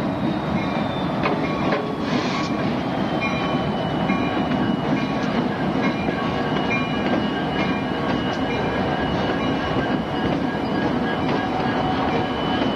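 Union Pacific diesel locomotives passing close below with a steady engine rumble and the rattle and clicks of wheels on rail, a thin high squeal running through.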